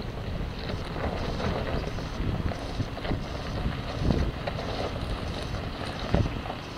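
Wind buffeting the microphone over the low, steady running of a lifted off-road SUV's engine as it crawls over loose rock, with two louder low thumps about four and six seconds in.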